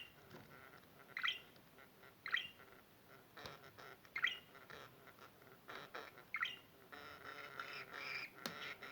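Pet budgerigar calling: four short, sharp chirps spaced a second or two apart, then a soft, continuous warbling chatter from about seven seconds in, with a few small clicks.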